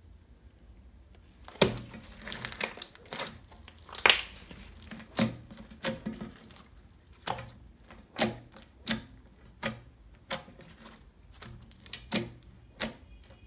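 Clear glitter slime with foam beads being pressed and poked by fingers, trapped air popping in a string of sharp, irregular clicks and squelches. The pops start about a second and a half in.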